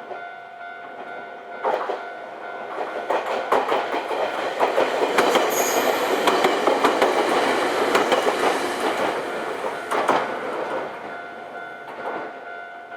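A Nankai Kada Line train passing over a level crossing, its wheels clacking over the rail joints, building to a peak mid-way and fading near the end. The crossing's warning bell rings steadily underneath.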